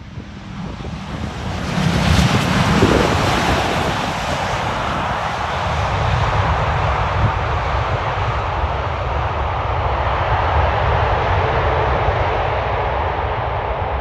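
Jet airliner on its landing run close by. Engine noise swells over the first two seconds into a loud, steady rush with a high whine above it, then eases a little after about four seconds and stays loud.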